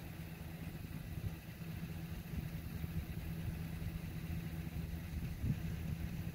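A steady low engine hum, running evenly like a motor at idle.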